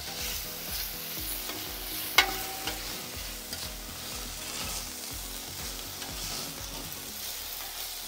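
Thin slices of ribeye sizzling as they fry in beef fat on a hot griddle plate, with metal tongs turning and scraping them. About two seconds in, the tongs strike the plate with a sharp metallic clink that rings briefly.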